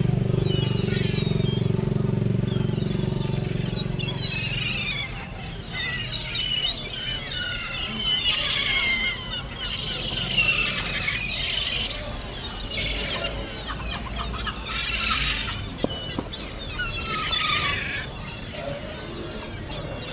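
Gulls calling, many short high cries overlapping one after another. A motor engine runs steadily for about the first four seconds, then fades away.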